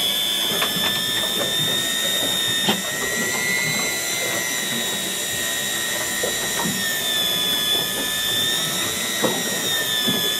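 Electric fishing reel winding in line under load from a hooked fish: a steady motor-and-gear whine that wavers slightly in pitch, with scattered clicks.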